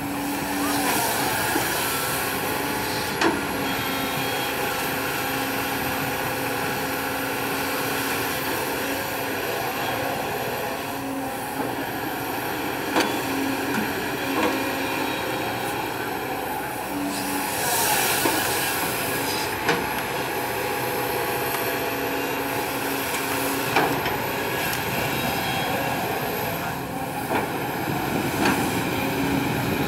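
Kobelco SK200 hydraulic excavator's diesel engine running steadily under load as it digs and swings soil, with a tone that comes and goes and two swells in the noise. A few short sharp clanks from the bucket and boom linkage.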